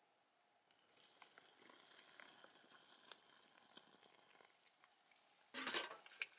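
Faint steady hiss of a liquid-fuel backpacking stove burning, with a few light ticks. About five and a half seconds in, a loud metallic clatter as the cooking pot is set back down onto the stove.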